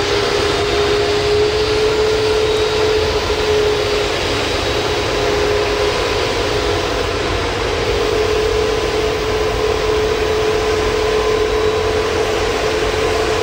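Airbus A380's four jet engines running at low power as the airliner rolls slowly past: a steady broad rush with a held whine.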